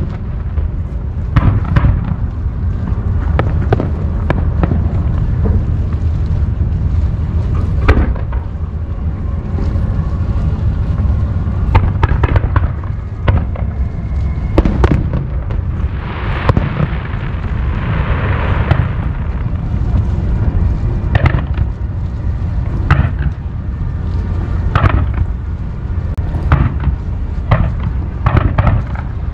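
Aerial fireworks display: a continuous deep rumble of shell bursts with many sharp bangs throughout, and a spell of dense hissing crackle about sixteen to nineteen seconds in.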